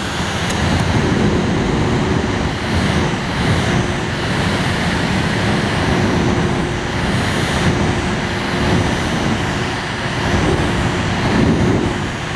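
Small fan of a mini desktop air conditioner running steadily, giving a constant hum with rushing air.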